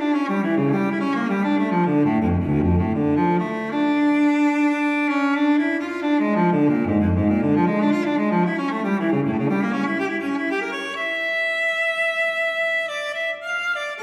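Background music with bowed strings playing a slow melody over deep bass notes that fall twice.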